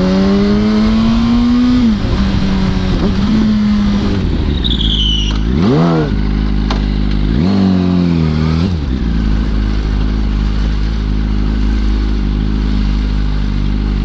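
2005 Yamaha R1's inline-four engine pulling through the gears: its pitch climbs, drops at shifts, swings up and down sharply twice near the middle, then settles into a steady low note for the last few seconds.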